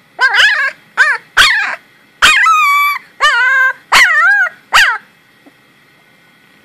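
Young Khmer puppy crying in seven short, high yelps over about five seconds, each one wavering up and down in pitch.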